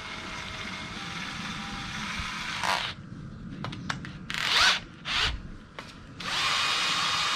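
Cordless drill driving a bulb-planting auger bit into heavy clay lawn: a steady run that stops, two short bursts with a rising whine and a few clicks between them, then another steady run near the end.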